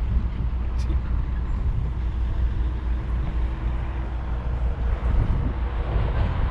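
Wind buffeting the microphone: a steady low rumble that rises and falls a little.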